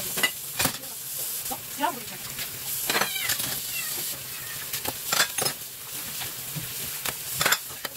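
Kitchen tap water running steadily onto dishes in a sink, with repeated clinks of ceramic cups and plates as they are rinsed by hand.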